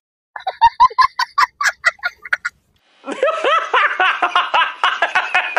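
A quick run of about a dozen short, high, honking laugh-like yelps. After a brief pause comes a stretch of hearty laughter dubbed over the video.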